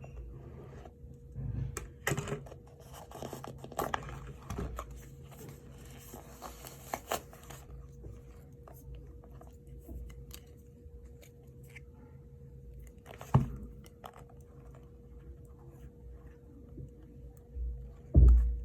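Packaging being torn open and handled: tearing and crinkling about two to seven seconds in, scattered clicks, and two sharp knocks, the louder one near the end. A faint steady hum sits underneath.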